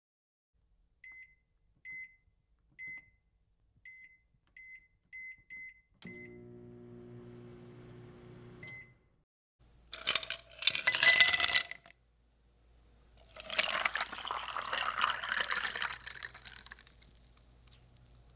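Kitchen sounds in sequence: a run of short electronic beeps like an appliance keypad, then an appliance humming for about three seconds and stopping with a beep. About ten seconds in comes a brief loud clatter, followed by a few seconds of noise like liquid being poured.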